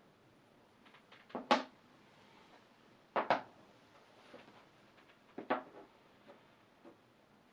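Light knocks of small hard objects being handled or set down: three short clusters about two seconds apart, each two or three quick strikes, with a few fainter ticks between.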